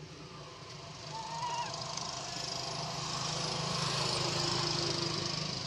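A short rising-then-falling animal call about a second in, over a steady high hiss that swells in the second half and a low steady hum.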